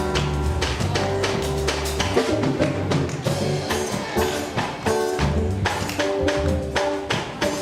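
Instrumental music with held bass notes and busy, fast percussion of taps and tambourine-like hits.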